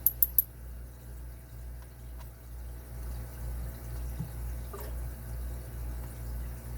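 Three quick, sharp metallic clicks right at the start, from small lock parts being handled, then a steady low hum with a few faint ticks.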